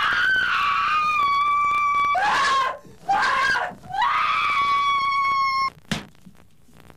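Two long, high-pitched screams, each held steady for about two seconds, with shorter cries between them. A single sharp knock comes about six seconds in.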